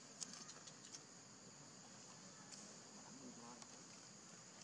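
Faint, steady high-pitched drone of insects in the surrounding forest, with a few faint ticks in the first second.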